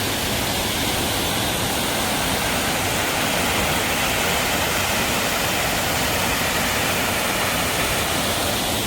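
Waterfall rushing: a steady, even noise of falling water with no change in level.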